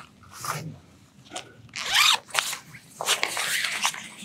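Nylon tent fabric rustling and crinkling as a window flap is handled and gathered up, with short zip-like strokes, the loudest about two seconds in, and denser rustling over the last second.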